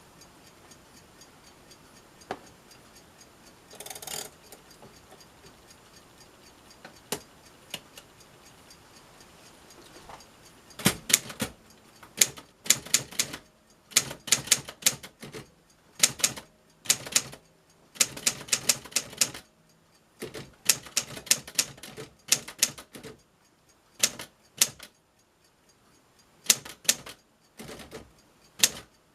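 1946 Underwood Standard manual typewriter being typed on: after a few scattered clicks, the typebars strike the platen in quick runs of keystrokes with short pauses between them.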